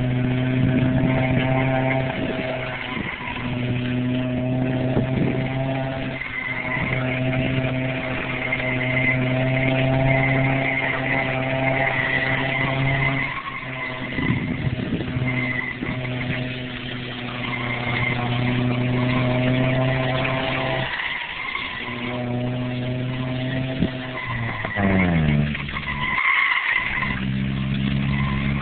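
1992 Honda Civic's four-cylinder engine running at steady revs while its tyres screech on and off as the car is driven fast in tight circles. The engine note drops away briefly a few times, and near the end it falls sharply before settling lower.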